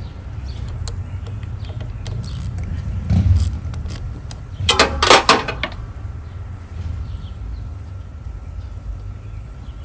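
Metal tool clicks and clatter as a socket wrench works the negative cable bolt off a lawn tractor battery terminal, with a quick run of sharp clicks about five seconds in, over a steady low rumble.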